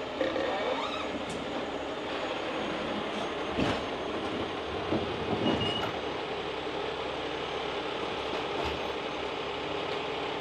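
A 50-ton rotator tow truck's engine and lifting gear running steadily under load as it winches a rolled-over box truck upright, with a steady hum. A few knocks and creaks from the rigging and the rising box sound around the middle.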